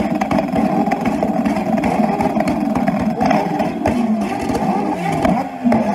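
Several motorcycle engines revved hard at once through tall straight exhaust pipes, held against the rev limiter so the note stutters, with sharp crackles and pops as flames shoot from the pipes.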